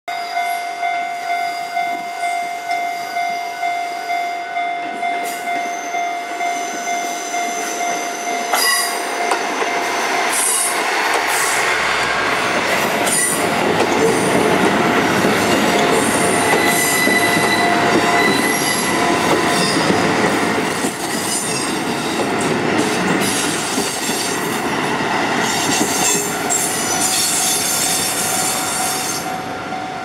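Japanese level-crossing warning bell ringing about twice a second. About eight seconds in, a five-car KiHa 11 series diesel railcar train passes close by at shunting speed, its diesel engines and wheels on the rails rising over the bell, with intermittent high wheel squeal.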